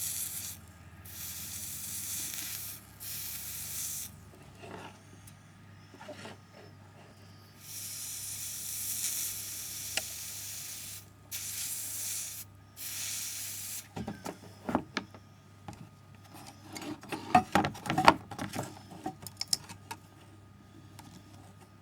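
Electropolishing brush wet with electrolyte hissing under current in repeated stretches of about a second as it is worked over a stainless steel weld seam, stripping the black weld oxide. In the second half come a series of light clicks and metallic clatters as the tube and tools are handled.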